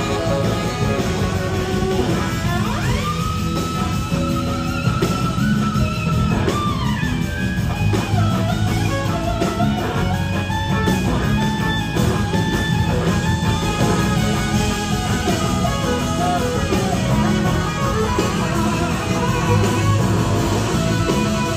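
A live rock band playing, led by an electric guitar holding long notes that slide up into pitch and back down, over bass and drums.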